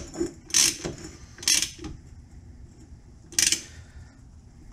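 Hand socket ratchet clicking in three short runs as it is worked back and forth to tighten the mainshaft sprocket nut on a Harley four-speed transmission.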